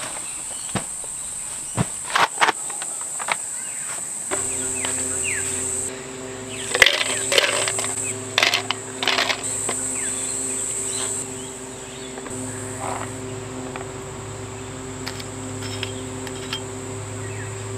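Steady high buzz of insects, with a steady low hum joining about four seconds in. Ice cubes clink into a plastic tumbler as a cluster of sharp knocks between about seven and nine seconds in.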